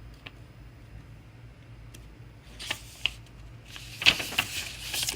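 Paper rustling, with a few light handling clicks and a longer rustle near the end: a picture-book page being turned.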